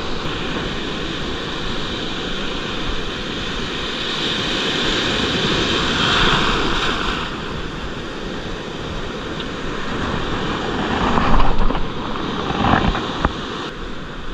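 Sea surf: small waves breaking and washing through shallow water, with wind rumbling on the microphone. The wash swells about halfway through and is loudest near the end.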